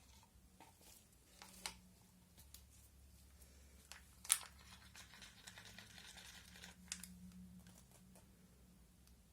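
Faint handling noises: a few sharp clicks, and a soft crinkling rustle in the middle.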